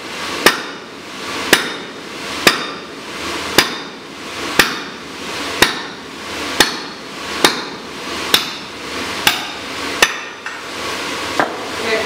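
Sledgehammer blows, about one a second, on a drift being driven through red-hot steel to open the hardy hole of a striking anvil: a sharp metallic strike with a short ring each time, about a dozen in all, the last two lighter.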